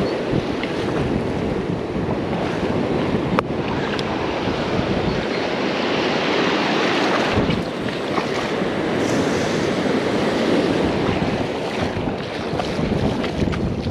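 Ocean surf washing onto the beach with wind buffeting the microphone, a wave swelling and washing in about halfway through.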